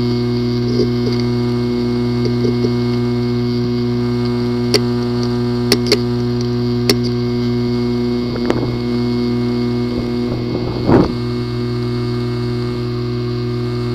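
A hard drive with a physically damaged disk assembly running with a steady buzzing hum, broken by a few sharp clicks around the middle and two short rough bursts later on: the clicking and buzz of a failing drive.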